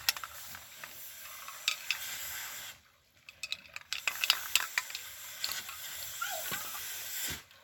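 Aerosol spray paint can hissing in long bursts as black paint is sprayed onto the water for hydro dipping. The spray stops for about a second near the middle, then starts again, with a few light clicks.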